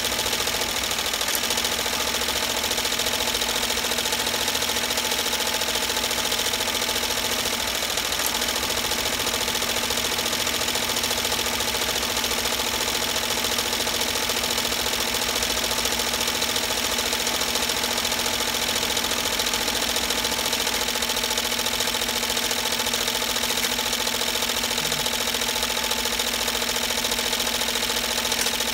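Commercial embroidery machine stitching an applique patch onto a knit beanie: a fast, even needle clatter over a steady motor hum, running without a break.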